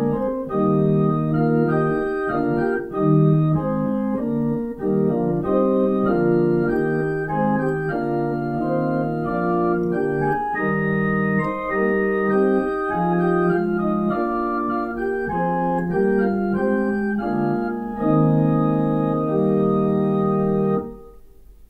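Organ playing a hymn introduction in held, changing chords, breaking off near the end before the singing begins.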